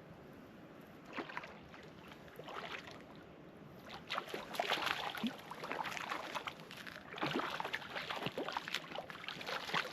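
Water splashing and sloshing in irregular bursts, growing busier about four seconds in, as a hooked brook trout thrashes at the lake surface while being landed.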